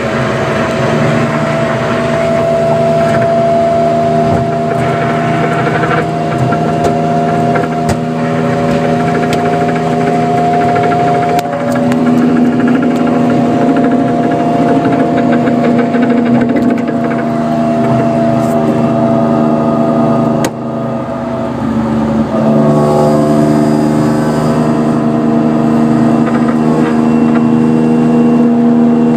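BMW E46 M3's 3.2-litre straight-six running steadily while driving, with scattered light clicks and rattles, the rattle coming from the rear trunk. The engine sound drops off briefly about twenty seconds in, then picks up again.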